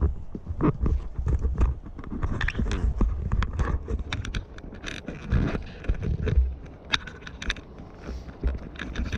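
Footsteps crunching through dry leaf litter: irregular crackles and scrapes, with a low rumble on the camera microphone.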